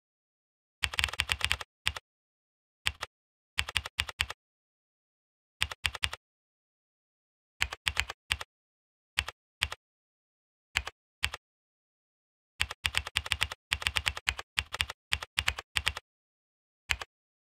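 Typing on a computer keyboard: rapid keystroke clicks in irregular bursts, some long and dense, some just a few keys, with silent pauses between them.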